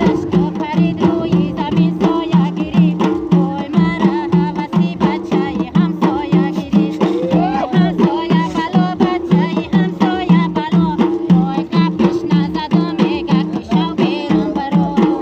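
Several Tajik doira frame drums played by hand together in a fast, steady folk rhythm.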